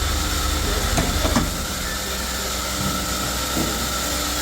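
Sawmill machinery running steadily with a hum and hiss, with a few knocks about a second in.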